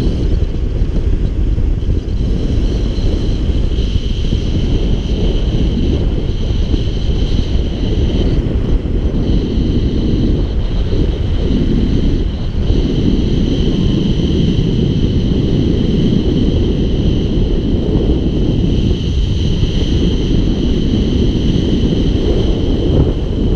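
Airflow rushing over the microphone in paragliding flight, a loud, steady, gusting wind noise, with a faint steady high-pitched whine above it.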